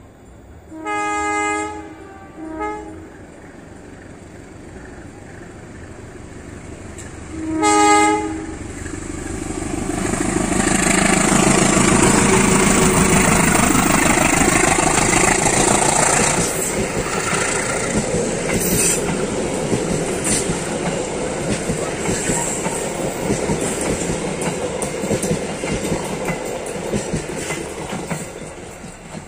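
KAI CC 203 diesel locomotive hauling a passenger train sounds its horn: a longer blast about a second in, a short one just after, and another near 8 seconds. Then it passes close and loud, its engine 'kobong', throwing thick black smoke and flame. The carriages follow, with wheels clicking over the rail joints, and the sound fades near the end.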